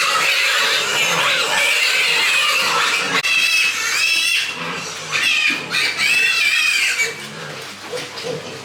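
Pigs squealing: a dense stretch of overlapping high-pitched squeals, then several separate squeals, dying down after about seven seconds.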